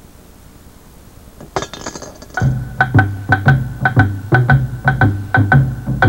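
Segment theme music: quiet at first, then about a second and a half in a short bright flourish, followed by a tapping percussive beat of about four hits a second over a steady bass line.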